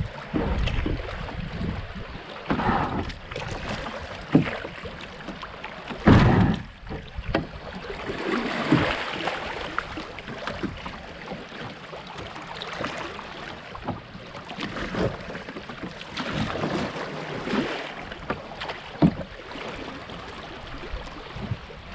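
Kayak moving down a fast-running creek: water rushing and splashing around the boat, with irregular knocks and splashes scattered through, the loudest about six seconds in.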